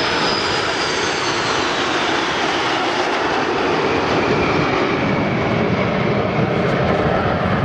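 Formation of Aermacchi MB-339 PAN jet trainers flying past, a steady rush of turbojet noise with a high whine that slides slowly down in pitch.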